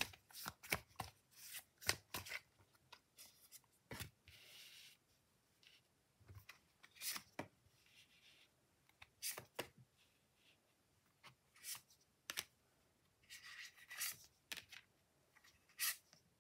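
Tarot cards being handled: a quick run of crisp card clicks as the deck is shuffled in the first couple of seconds, then scattered single taps and snaps as cards are dealt onto a soft mat. Two brief rustles of cards sliding come about four seconds in and again near the end.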